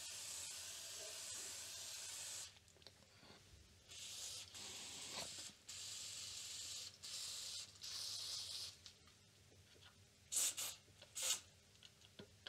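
Aerosol electronic contact cleaner hissing out through its thin extension straw as it is sprayed into a computer motherboard's slot sockets and connector contacts. There is one long spray, then three shorter sprays after a brief pause, then two quick puffs near the end.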